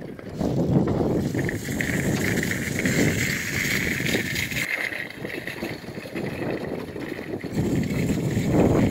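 Rattling and clattering of children's novelty bicycles rolling over a paved course, loudest about a second in and again near the end.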